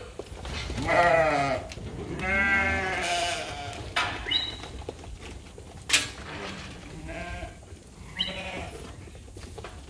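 Sheep bleating, several calls one after another, the longest lasting about a second. A single sharp knock comes about six seconds in.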